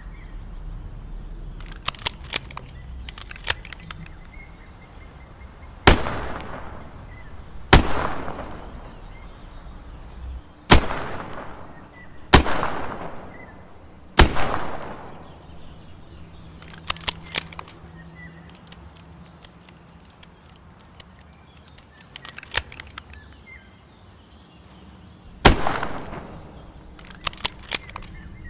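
Smith & Wesson 360J .38 Special revolver fired six times: five shots a second or two apart, then one more after a long gap, each with a decaying echo. Clusters of small sharp clicks fall between the shots.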